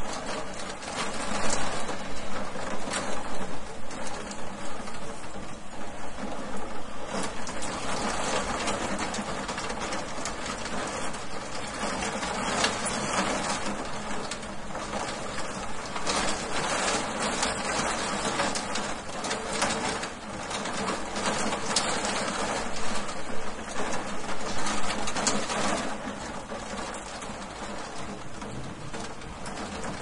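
Hail pelting a window pane: a dense, uneven patter of many small hard hits on the glass, growing heavier and lighter in waves and easing off near the end.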